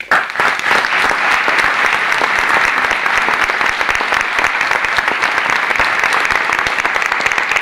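Audience applauding: a dense burst of clapping breaks out suddenly and keeps going steadily.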